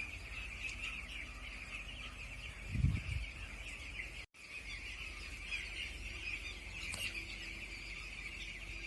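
Many chickens calling together in a dense, continuous chatter. A dull thump comes a little under three seconds in, and the sound cuts out for a moment a little over four seconds in.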